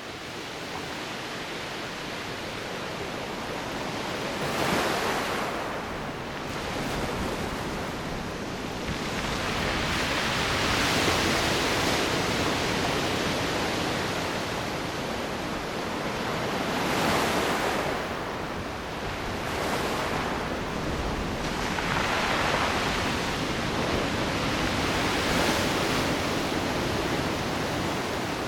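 Ocean surf on a beach: waves breaking and washing in, swelling every few seconds over a steady roar, with some wind on the microphone.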